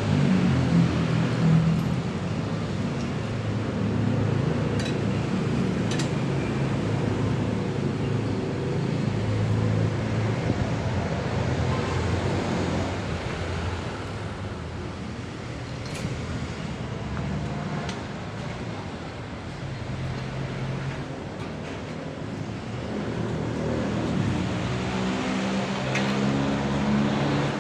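A motor vehicle's engine running steadily, its pitch shifting a little now and then, with a few sharp clicks.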